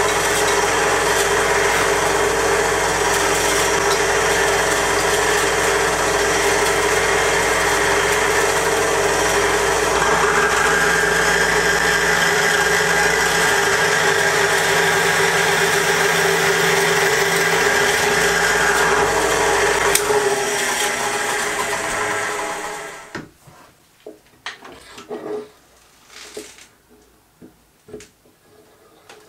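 Bench drill press running steadily while a fine drill bit cuts into a small steel part held in a machine vise, its tone changing while the bit is in the cut. About twenty seconds in the motor is switched off and runs down, leaving only a few light clicks.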